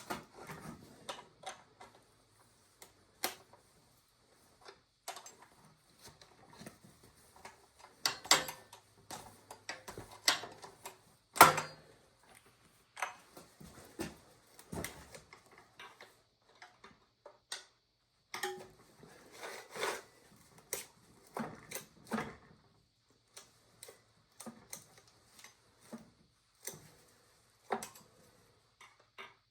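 Irregular metallic clicks, clinks and knocks of hand work on a Husqvarna 395 XP chainsaw's bar and chain, with the sharpest knock about eleven seconds in.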